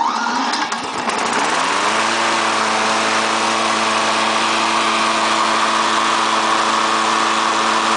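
Briggs & Stratton single-cylinder lawnmower engine started with its push-button electric starter: it catches at once, revs up over about two seconds, then runs at a steady speed. It now runs with a replacement camshaft fitted in place of one whose plastic cam gear had broken.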